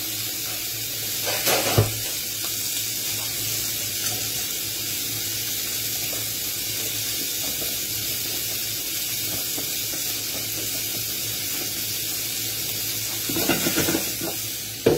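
Lamb's liver, bacon rashers and onions sizzling steadily in a frying pan. There are a couple of short knocks about two seconds in, and clatter near the end as the pan is handled.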